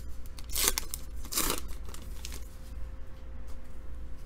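Foil wrapper of a trading-card pack crinkling and tearing, in two short bursts about half a second and a second and a half in, followed by a few light handling ticks.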